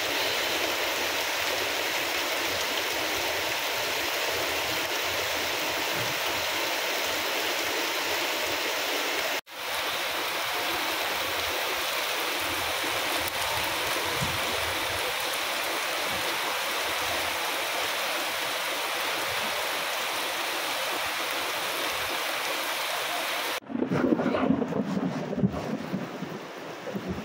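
Heavy rain pouring down steadily on a street and rooftops, a dense even hiss. It cuts out for a moment about a third of the way in. Near the end it turns gusty and uneven, with low rumbling under the rain.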